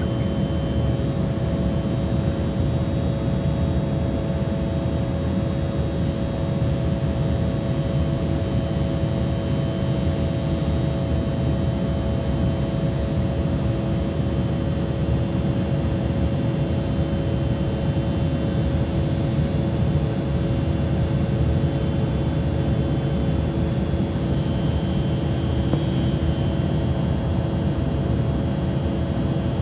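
Cabin noise of an Embraer E175 in its climb after takeoff: a steady low rush of air and engine noise from its GE CF34 turbofans, with a few steady humming tones held throughout.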